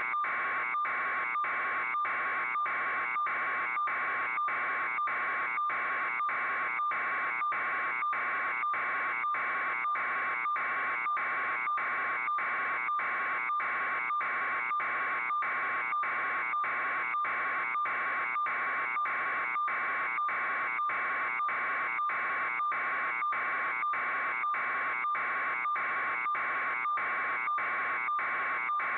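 A steady, loud buzz pulsing quickly and evenly without change.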